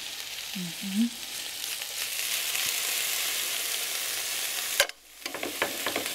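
Onions frying in cooking oil in a pan, a steady sizzle, with short scraping strokes of a tomato being grated on a flat grater over the pan near the end. The sound drops out briefly about five seconds in.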